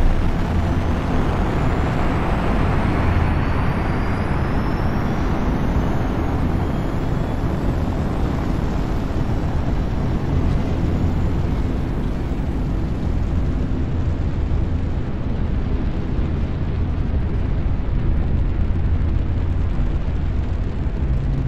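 Sound-design rumble of a spacecraft's engines under thrust: a loud, steady, deep rumble with a hiss above it. The hiss is brightest in the first few seconds, and faint rising whistles sit high above it.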